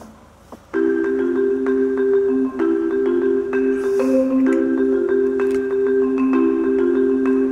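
Background music: a repeating pattern of struck, ringing notes that starts just under a second in.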